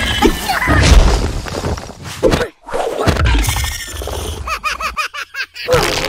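Cartoon sound effects with some music: crash- and shatter-like hits in the first half, and a quick run of rising-and-falling squeaks about five seconds in.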